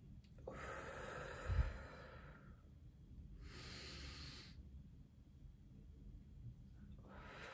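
A woman breathing deeply and audibly in and out during a breathing exercise, with long breaths about half a second in, around three and a half seconds in, and another starting near the end. A short low thump about a second and a half in.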